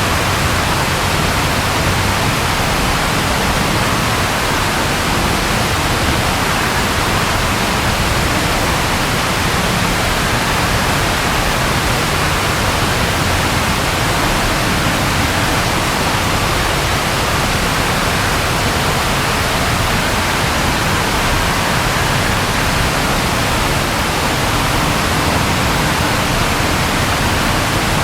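Steady rain falling, an even unbroken hiss at constant loudness.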